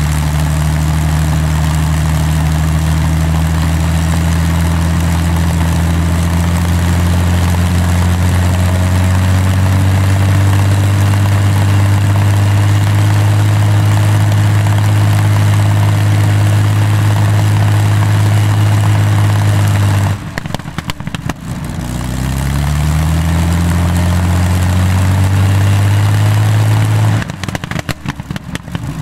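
Rolls-Royce Merlin 27-litre V12 aero engine running on a ground test stand through its open stub exhausts, propeller turning. Its speed rises slowly, then falls away suddenly twice with a ragged stutter and climbs back each time.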